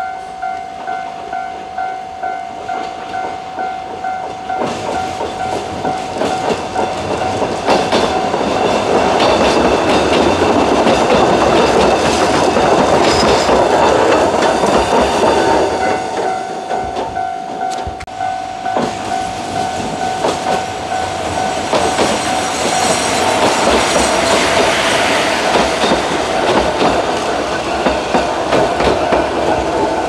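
Level-crossing warning bell ringing in quick, even repeats while a narrow-gauge Asunarou Railway electric train runs past over the rails. The train's running noise builds over the first few seconds, dips about halfway through, then swells again.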